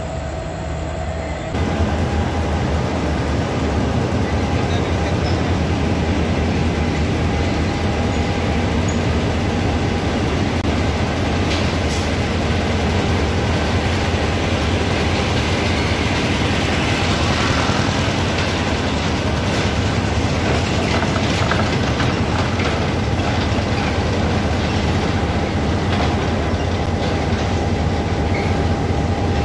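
Diesel locomotive running close by: a steady, loud engine rumble with a low hum that gets louder about a second and a half in.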